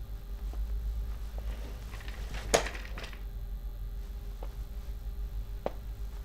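A person moving about a small room and handling something at a desk: faint footsteps and light knocks over a steady low hum, with one sharp click about two and a half seconds in.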